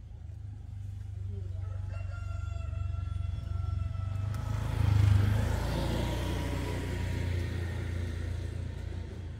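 A rooster crows once, a long crow beginning about one and a half seconds in, over a steady low rumble. About halfway through, a louder rushing noise swells up and carries on to near the end.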